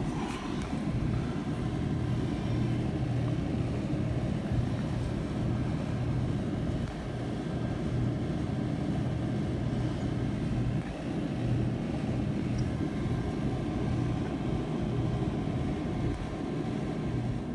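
Steady motor whir and rushing air at a refrigeration condenser coil, over a low hum, dipping briefly twice.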